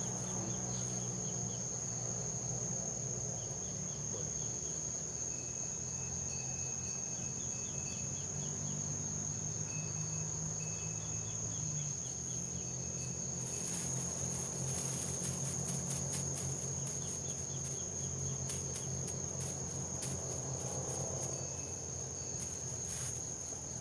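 Insects keeping up a steady high-pitched buzz. From a little past halfway, irregular rustling and clicks join in.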